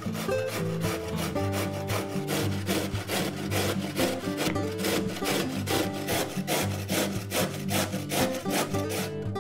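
Carrot being grated on a stainless-steel box grater: rhythmic rasping strokes, about three a second, that stop shortly before the end. Background music plays underneath.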